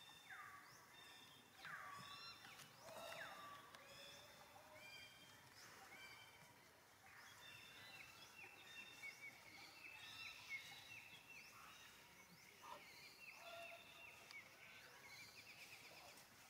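Faint outdoor ambience with many high-pitched animal chirps and squeaks: a few falling squeals in the first three seconds, then a quick run of short chirps around the middle.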